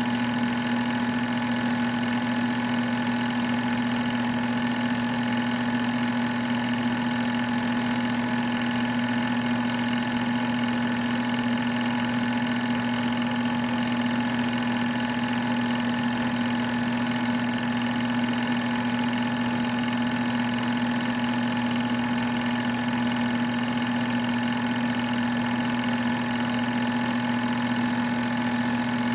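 Sears Tower movie projector running, a steady mechanical hum and whir that does not change.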